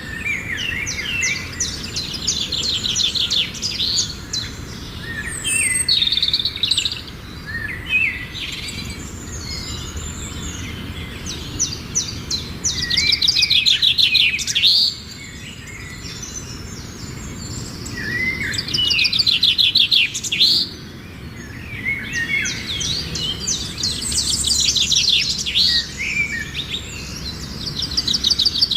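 Songbirds singing: repeated trilled phrases of rapid notes, each a second or two long, with short chirps between them, over a steady low background rumble.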